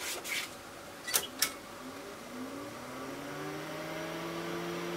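Power push-button of a Wavetek 178 clicking twice about a second in, then the unit's cooling fan spinning up: a hum that rises in pitch and settles into a steady tone.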